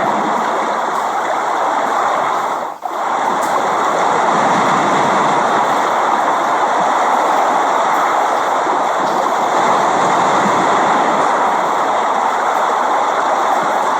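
Steady rain, an even hiss, with a brief sharp dip in level about three seconds in.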